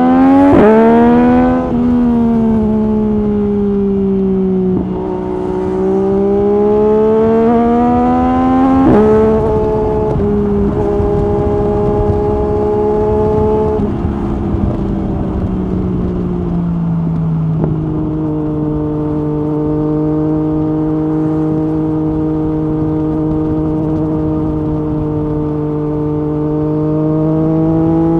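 Yamaha MT-09 SP's three-cylinder engine through an Akrapovic Carbon Racing-Line exhaust with the dB killer removed, accelerating with the revs climbing and then dropping suddenly, twice, as the quickshifter changes up. It then runs at steady revs while cruising, with the revs starting to rise again near the end.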